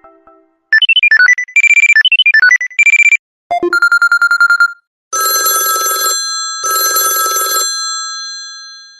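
Samsung Galaxy S ringtones played one after another: a fast, trilling electronic melody, then a short rapid pulsing electronic ring, then two long rings of an old-style telephone bell, the second fading away near the end.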